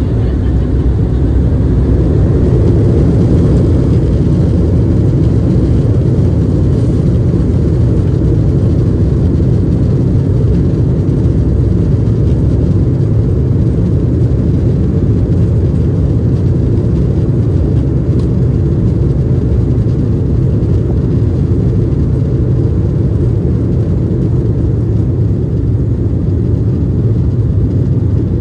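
Passenger aircraft engines at takeoff power heard from inside the cabin, a steady, loud, low rumble with the rush of air. It grows a little louder over the first few seconds, then holds.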